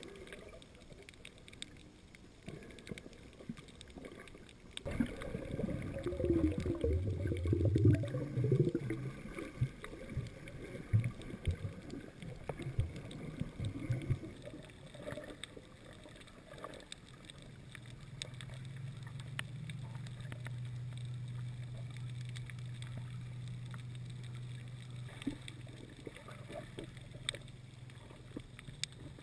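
Underwater sound picked up by a camera held beneath the surface: water sloshing and bubbling around it in irregular bursts for several seconds, faint scattered clicks throughout, then a steady low drone in the second half.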